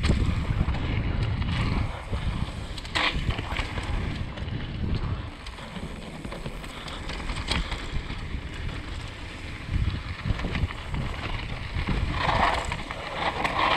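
Wind buffeting an action camera's microphone while a Canyon Torque mountain bike rolls fast down a dirt downhill trail, with tyre rumble and occasional clatters from the bike over bumps.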